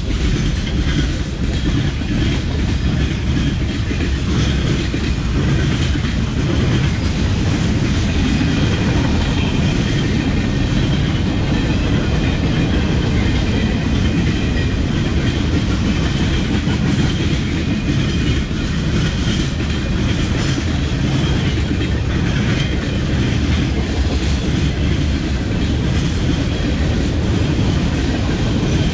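Freight train rolling past, loud and steady, its car wheels clattering over the rail joints.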